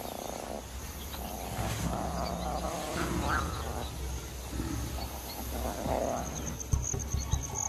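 African lions growling low and intermittently, with a faint high insect trill coming in near the end.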